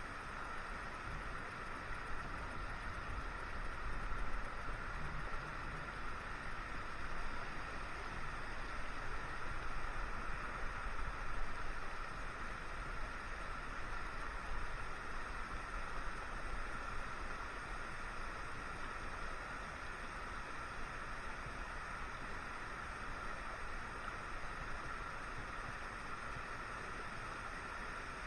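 Steady rush of a small creek flowing over rocks.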